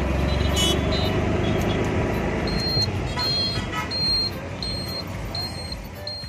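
Auto-rickshaw engine running and road noise heard from inside the open cab while riding, loudest in the first two seconds. From about two and a half seconds in, a short high beep repeats about every two-thirds of a second.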